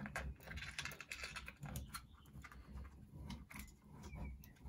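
Faint, irregular clicks and taps of plastic being handled as a battery pack and its wires are pushed into a 3D-printed blaster handle.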